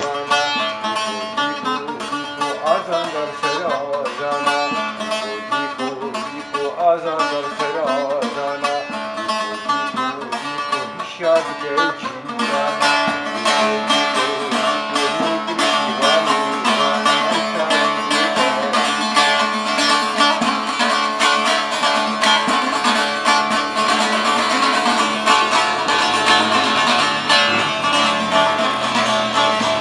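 A man's voice singing to a long-necked saz for about the first twelve seconds. Then the saz carries on alone, louder, with fast strumming.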